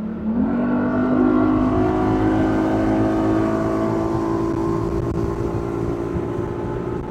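A 150-horsepower outboard motor on a bass boat is opened to full throttle and accelerates hard as the boat comes up on plane. The engine note jumps up in pitch in the first half second, then holds steady over a broad rush of noise.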